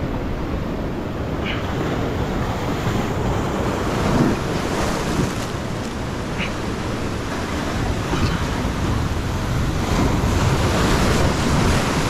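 Ocean surf breaking and washing over a rocky reef shoreline: a steady rush of water.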